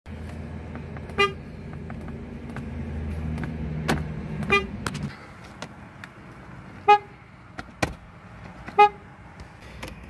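Weak car horns pressed from inside the cabin: a Chevrolet's horn, then a Ford's, each giving a short, thin toot, four in all a couple of seconds apart, with a few sharp clicks. A low steady engine idle hum stops abruptly about five seconds in.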